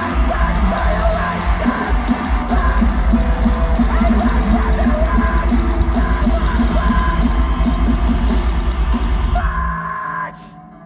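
Metalcore band playing live at full volume, with pounding drums and heavy guitars. Near the end the drums and bass drop out, leaving a thinner ringing guitar sound.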